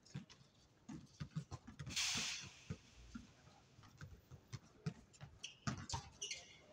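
Basketball game on a hard outdoor court: the ball bounces at an irregular pace, with a short burst of noise about two seconds in.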